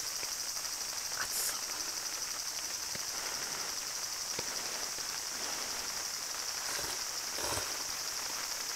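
Steady high-pitched drone of summer insects, with a few light clicks and a short slurp of noodles near the end.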